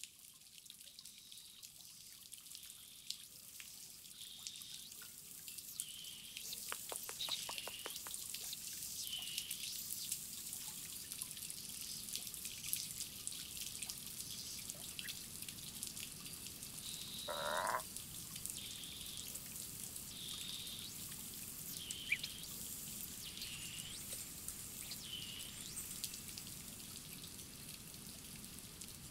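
Small garden fountains trickling into a shallow pond, with short high chirps repeating every second or so and one brief rustle about two-thirds through.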